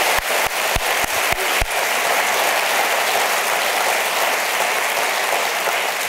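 Audience applauding steadily, with a few loud single claps close by in the first second or two.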